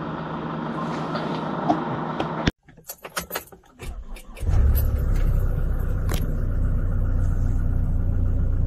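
Keys jingle and there are several clicks, then about four and a half seconds in the Hyundai Porter truck's engine starts and settles into a steady low idle.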